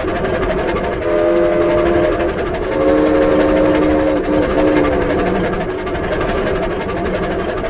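Cartoon-style steam train sound effect, made from scratch: a fast, steady chugging with a multi-note whistle chord blown twice, briefly about a second in and again for about two seconds shortly after.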